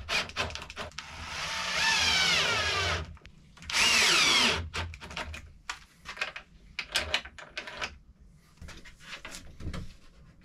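Cordless drill boring into a wooden frame: one run of about two seconds with its pitch wavering, then a shorter burst about four seconds in. After that come light knocks and handling of the wood.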